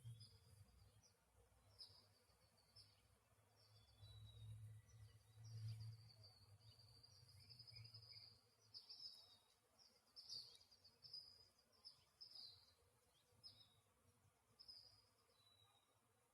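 Faint birdsong: a bird gives short high chirps over and over, in quick runs. A low rumble comes and goes during the first half.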